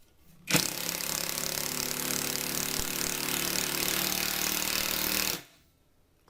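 RUYIKA cordless 1/2-inch drive impact wrench hammering steadily as it drives a screw into wood. It runs for about five seconds, then stops suddenly.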